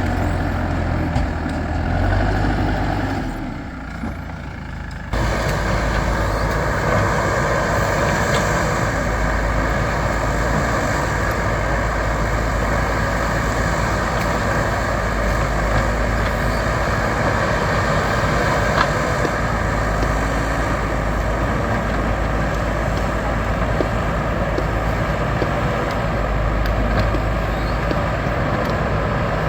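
Diesel engine of a backhoe loader working, running steadily with a low throb. It goes quieter for a moment about four seconds in and comes back abruptly about five seconds in.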